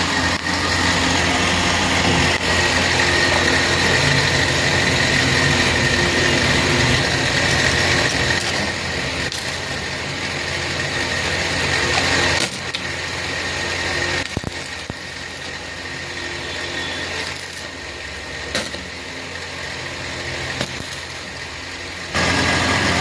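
Electric arc welding on a truck's tie rod: a steady hissing crackle over a low electrical hum. It is loud for about the first half, quieter through most of the second half, and loud again near the end.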